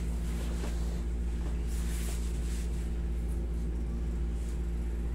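Steady droning hum of a window-type air conditioner running, with a few faint rustles.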